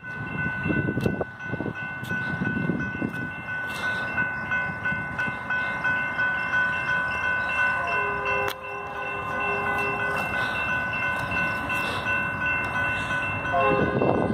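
Railroad crossing bell ringing in a steady rhythm. A BNSF freight train's horn sounds faintly about eight seconds in, then louder near the end as the train approaches. The horn is fouled, with an off-sounding chord.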